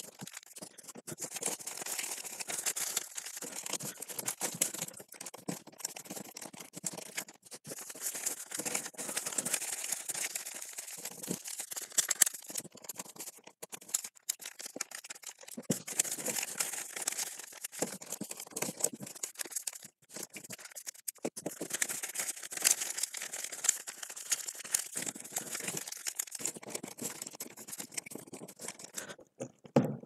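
Folded paper rustling and crinkling as hands handle and glue it, with a glue stick rubbing over the paper flaps and many small clicks and taps.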